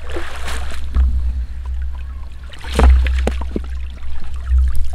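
Water splashing and dripping off a wet cast net as it is pulled up out of the water over the side of a wooden boat, with the loudest splash about three seconds in and small knocks and drips after it. A steady low rumble runs underneath.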